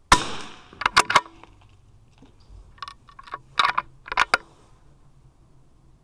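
A single .22 LR rifle shot, followed by sharp metallic clicks: a quick group of three about a second later and another cluster a few seconds in, as the bolt is worked to eject the case and chamber the next round.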